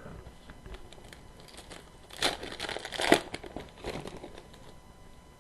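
A hockey card pack wrapper crinkling as it is torn open. A dense burst of crackling about two to three seconds in is the loudest part.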